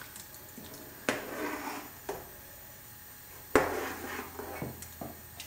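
Metal ladle knocking against an aluminium pressure cooker pot twice, about two and a half seconds apart, each knock followed by about a second of stirring through the liquid sambar.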